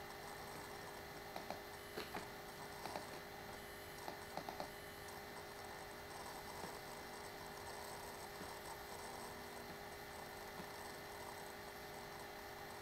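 Several short computer-mouse clicks, some in quick pairs like double-clicks, in the first five seconds, over a faint steady electrical hum.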